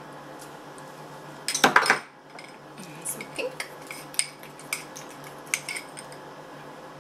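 Kitchen utensils and dishes clinking and clattering: a short burst of clatter about a second and a half in, then a string of scattered light clinks.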